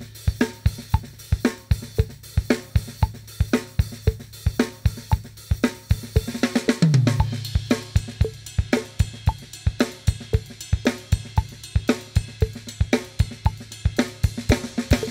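Full drum kit playing a steady groove: kick drum and snare backbeat under a fast, even hi-hat pattern, with cymbals ringing.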